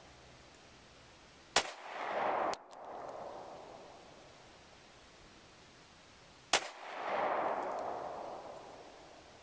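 Smith & Wesson M&P pistol in .357 SIG firing three shots: two about a second apart, then one about four seconds later. Each shot is a sharp crack followed by a long fading echo.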